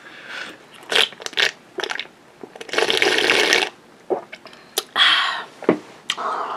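Close-miked biting and crunching into crispy fried chicken wing batter, with chewing: sharp crackles, then a longer dense crunch about three seconds in and another near five seconds.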